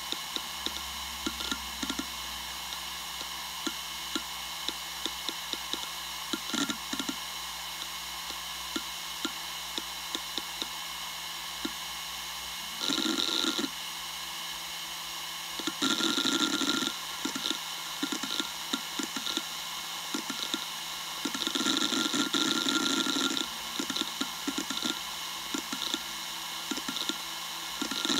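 Western Digital Raptor WD1600ADFD 10,000 rpm hard drive spinning with a steady whine, its heads seeking in scattered clicks. Four louder stretches of rapid seek chatter, each about one to two seconds long, break in during the second half.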